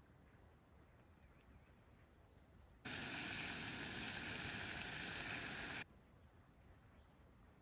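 A small camp stove with a steaming pot on it hissing steadily for about three seconds in the middle, cutting in and out abruptly. Before and after, only faint outdoor background.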